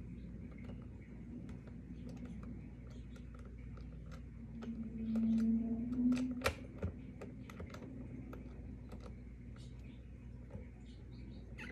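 Small irregular clicks and ticks of a skate tool working an axle nut while a roller skate wheel is being changed, over a steady low hum. About halfway through a brief, louder low hum rises over it.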